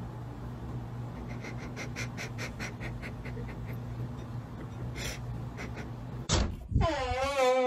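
A steady low hum with a run of faint quick ticks. Near the end come two heavy thumps, then a wavering cry that falls slightly in pitch and cuts off.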